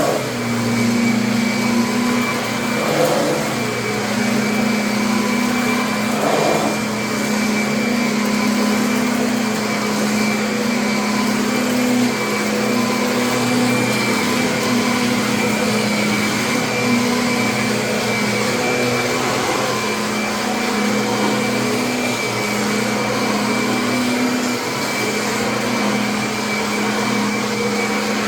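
Kirby upright vacuum cleaner running steadily, its motor hum dipping slightly in pitch and recovering every few seconds.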